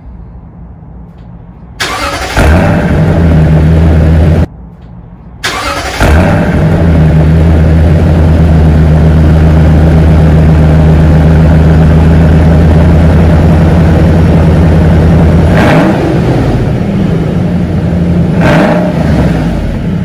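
Cold start of a 2020 Toyota Sequoia TRD Pro's 5.7-litre V8 through a Corsa cat-back exhaust, heard at the tailpipe. It cranks and catches, drops away for about a second, then fires again and settles into a loud, steady cold-start fast idle, with two brief surges near the end.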